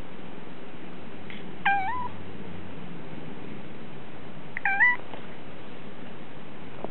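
Domestic cat giving two short meows about three seconds apart, each dipping and then rising in pitch: affectionate, attention-seeking meowing.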